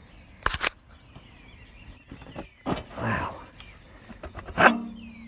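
Sharp knocks and handling noise from the sheet-metal air cleaner housing of a Kohler Magnum engine as it is worked loose. The loudest is a clank near the end that rings on briefly.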